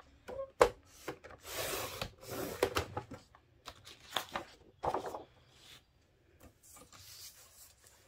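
Sliding-blade paper trimmer cutting patterned cardstock: a sharp click under a second in, then the blade carriage rasping along its rail through the paper for about a second and a half. Afterwards a few clicks and the rustle of paper being slid across the trimmer base.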